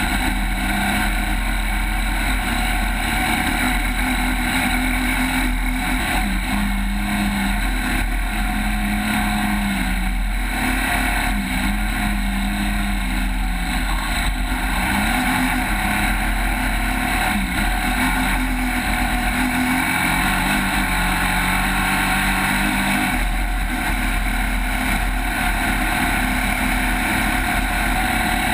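Off-road race vehicle engine running hard and steadily, its pitch stepping up and down now and then with the throttle, over a heavy low rumble.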